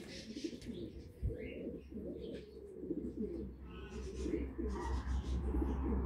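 Doves cooing in a low, wavering, repeated run, with a few short higher bird chirps over it and a low rumble building near the end.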